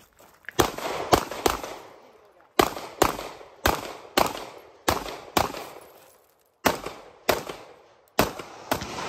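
9mm TISAS MAC 9 DS pistol fired in rapid pairs, about fourteen shots in all, each with a short echoing tail, and a brief pause about six seconds in.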